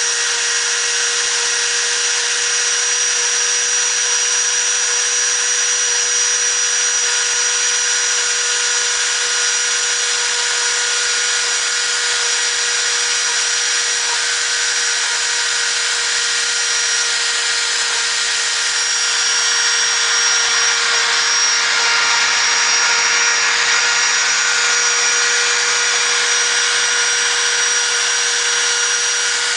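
Spindle of a Maruti CNC 200 PCB machine running at high speed: a steady high whine over a hiss, slightly louder for a few seconds past the middle.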